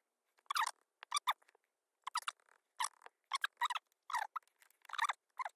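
Fast-forwarded audio: a man's voice sped up into short, squeaky, chipmunk-like chattering bursts, about two a second, with dead silence between them.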